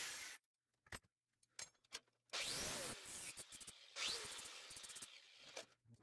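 An angle grinder's cut-off disc cutting stainless-steel cutlery stops abruptly just after the start. Then come a few light clinks and two longer scraping rubs, with a faint squeal, as metal cutlery pieces are handled and slid across the steel workbench.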